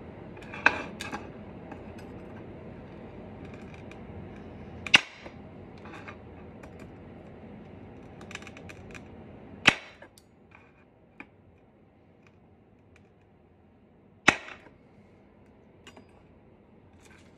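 Chef's knife cutting through a slab of hard, fridge-cold caramel, each cut ending in a sharp knock of the blade against the cutting surface: four loud knocks several seconds apart, with lighter taps between.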